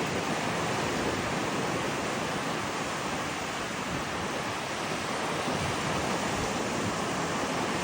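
Ocean surf breaking on a beach, heard as a steady wash of noise.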